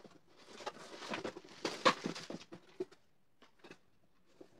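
Rummaging in a cardboard box of plastic decorations: irregular rustling and light knocking of plastic and cardboard, with a sharper knock about two seconds in. It goes mostly quiet after about three seconds, with a few small clicks.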